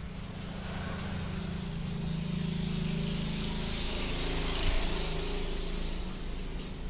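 A motor vehicle's engine passing by: a steady low hum that grows louder, peaks about four and a half seconds in, then fades.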